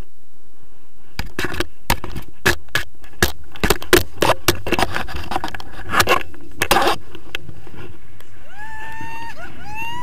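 Wind buffeting and knocking on the camera microphone during a tandem paraglider takeoff: a steady low rumble with a dense run of sharp thumps and gusty bursts for about six seconds, then a few short wavering pitched sounds near the end.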